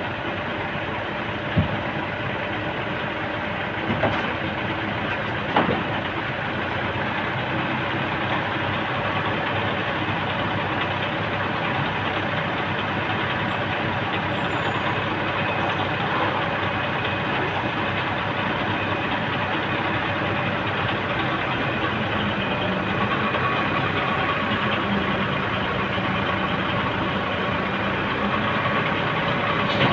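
Diesel engine of a truck-mounted crane running steadily as it powers the crane's hydraulics, with a few sharp metallic knocks in the first six seconds. A steadier humming tone joins about two-thirds of the way through.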